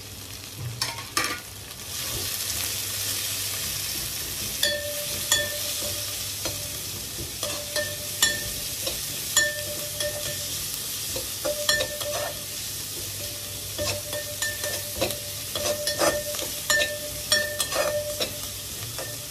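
Chopped onion frying in hot mustard oil with garlic and whole spices: a steady sizzle that grows louder about two seconds in. A spoon stirs it, with repeated scrapes and clicks against the pan, some of them briefly ringing.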